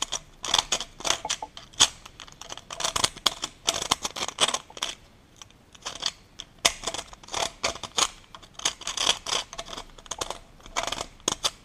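A metal hand tool scraping and picking dirt out of the grooves around the eccentric lock nut on a Peugeot 205 rear axle: a quick, irregular run of short scratches and clicks, pausing briefly about halfway through.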